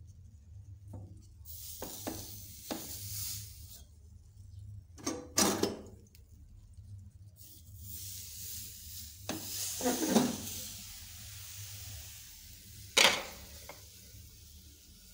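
Stainless steel pot of stiff ugali being scraped and handled, with rasping scrapes and a few sharp metal knocks, the loudest about five and thirteen seconds in, as the ugali is turned out of the pot.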